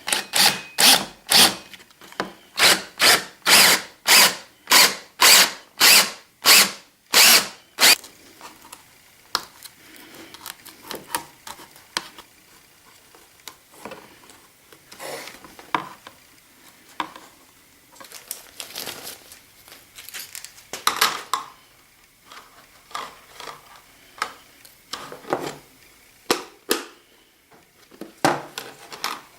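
Power drill driving a hole saw into the plastic bucket, cutting in a quick series of short bursts about two a second, then stopping about eight seconds in. After that come scattered knocks, scraping and handling of the plastic pieces.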